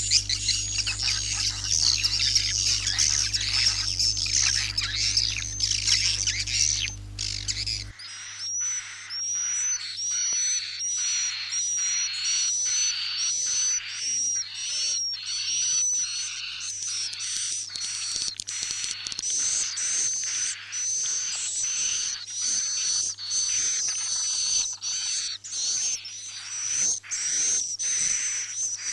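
Recorded swiftlet roosting lure call ('suara inap'), played to draw swiftlets to roost in a swiftlet house: dense high twittering chirps. For the first eight seconds a steady low hum lies under them, then cuts off suddenly. After that the chirps come in a regular repeating run of about two a second.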